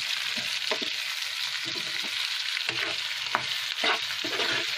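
Chicken gizzards (sanghdana) and onions sizzling in oil in a nonstick frying pan as they are stirred with a spatula. The spatula scrapes against the pan a few times over the steady sizzle.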